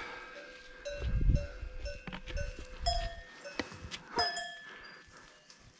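Several cowbells on cows clanking irregularly as the animals move, short rings at a few different pitches.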